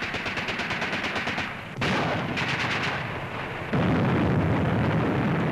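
Battle sound on an old newsreel soundtrack: two long bursts of rapid automatic gunfire, then a louder, steady low rumble in the last two seconds.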